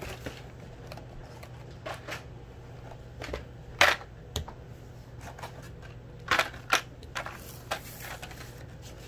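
Carded Hot Wheels packages being pulled out of a cardboard case: plastic blisters and card stock clacking and scraping against each other in short rustles and clicks. The loudest comes about four seconds in, with two more a little after six seconds.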